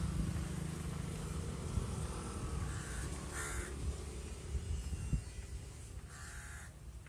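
Crows cawing, a few short calls, over a steady low rumble.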